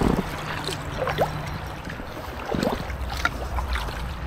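Double-bladed kayak paddle strokes from an inflatable kayak: the blades dip into the canal water and lift out dripping, with a splash about once a second. Under them runs a steady low rumble of distant road traffic.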